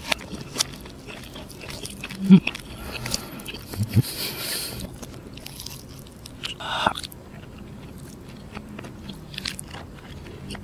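Close-miked eating of crispy fried chicken: the crust crackling as a piece is torn apart by hand, then biting and chewing, with many small crackles and a louder crunchy stretch about four to five seconds in. A couple of brief low hums from the eater.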